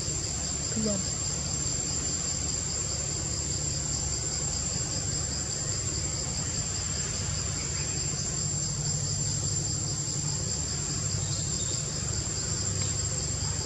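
Chorus of forest insects: a steady high-pitched shrill with a fast pulsing trill just below it, over a low steady hum.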